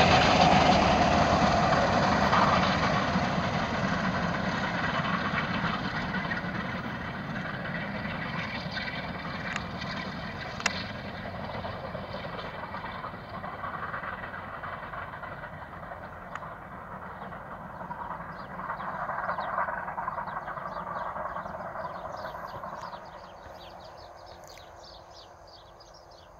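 Bulleid light Pacific steam locomotive 34052 hauling its train away into the distance, its noise fading steadily with a couple of brief swells as it goes. Birds chirp near the end as the train dies away.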